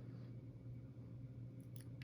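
Low steady hum of a quiet room, with a couple of faint light clicks near the end from small parts of the padlock being handled.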